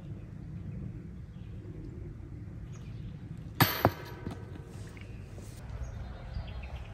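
A golf disc striking a metal disc golf basket: two sharp metallic hits about a quarter second apart, a little past halfway, with brief ringing after them.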